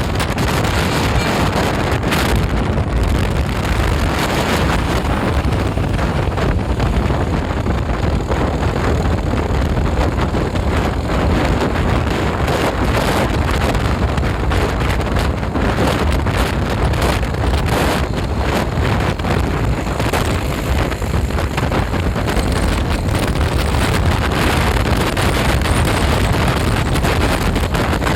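Steady wind buffeting the microphone, a loud, even rush with a deep low rumble and no horn blasts.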